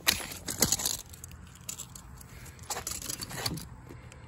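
Handling sounds: scattered clicks and rustles as a steel tape measure is drawn out and laid across the end of a 3-inch PVC pipe. They come in two clusters, one at the start and one about three seconds in.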